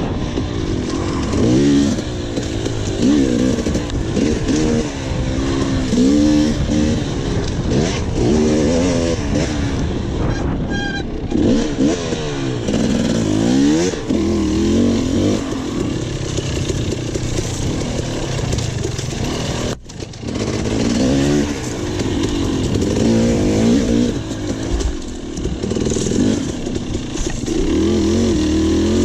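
Enduro dirt bike engine revving up and down hard and repeatedly as the rider works the throttle and gears, with a brief sharp cut about two-thirds of the way through.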